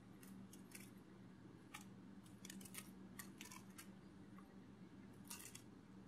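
Near silence: a faint steady low hum with scattered faint clicks, several close together in the middle and a few more near the end.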